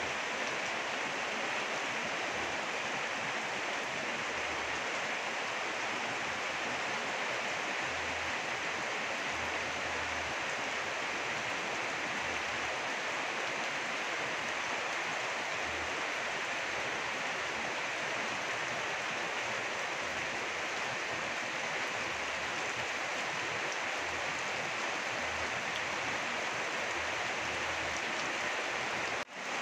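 Steady rain falling on leaves, grass and the surface of a small garden pond, an even hiss without a break.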